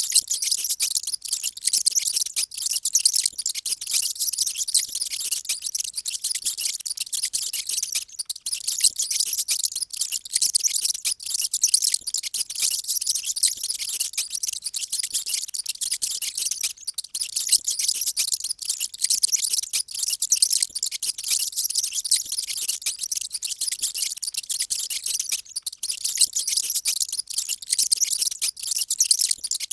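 Many mice squeaking at once: a dense, continuous high-pitched chatter of overlapping squeaks.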